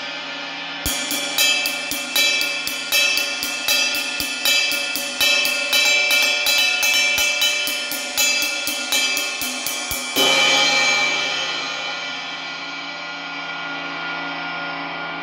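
Paiste Sound Creation New Dimension 22-inch bell ride played with a wooden drumstick: a steady ride pattern of about three strokes a second for some nine seconds, ending in a harder hit. The cymbal's wash then rings on and slowly fades.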